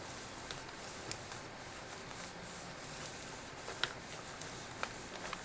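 Microfiber cloth buffing a laptop's touchscreen: faint rubbing with a few light, sharp ticks.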